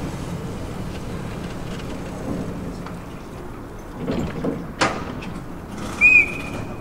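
Historic electric tram rolling slowly past with a steady low rumble. A single sharp clack comes about five seconds in, then a short, high whistle-like tone near the end.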